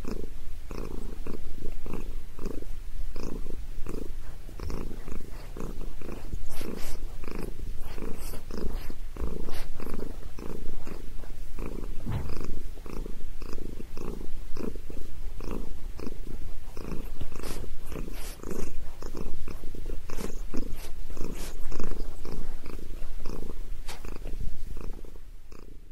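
Domestic cat purring loudly and steadily in a pulsing rhythm while its head is massaged.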